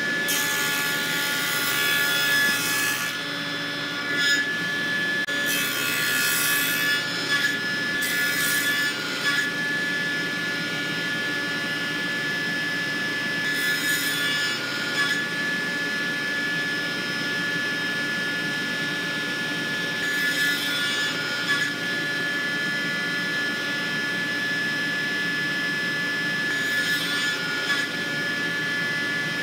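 Table saw running steadily while its blade cuts a wooden board in repeated passes to nibble out a notch. The cutting noise rises over the motor's hum several times, most often in the first ten seconds.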